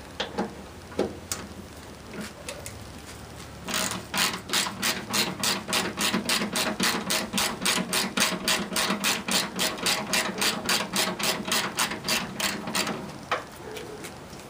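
Hand ratchet with a 10 mm socket clicking fast and evenly, about four clicks a second for some nine seconds, as a fender bolt is loosened; a few single clicks come before and after.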